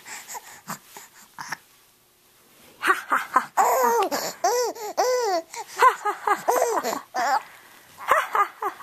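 Baby laughing and squealing in a run of high, rising-and-falling calls starting about three seconds in, with another short burst near the end.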